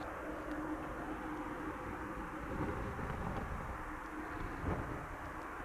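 Airbus A300-600ST Beluga's General Electric CF6-80C2 turbofans at taxi idle, heard from a distance: a steady noise with a faint steady hum underneath.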